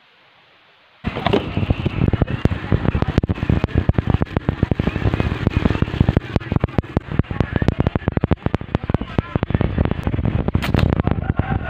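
Thin plastic bag crinkling and rustling right at the microphone as it is untied and pulled open from around foam takeaway boxes, a dense run of crackles that starts suddenly about a second in.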